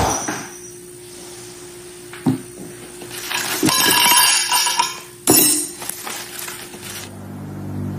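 A few sharp clinks of dishes and tableware, with some rustling, over quiet background music; near the end a new music cue with low sustained notes comes in.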